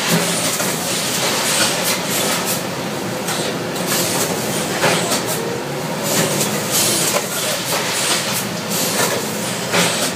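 Mobile bagging machine running while a bulk bag fills beneath its spout: a steady loud rattling rush, with irregular sharper clatters throughout.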